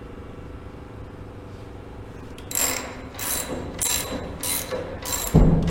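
Hand ratchet clicking in repeated short back-strokes, about one and a half a second, as it unscrews a motorcycle's front axle. The clicking starts about two and a half seconds in, after a low steady hum, and there is a heavy thump near the end.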